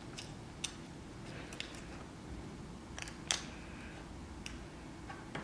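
Faint scattered clicks and taps of fingers or a tool handling the small parts inside an iPhone 4S while its charge port ribbon is being fitted. The clicks are sparse, about half a dozen, with a slightly sharper one a little past the middle.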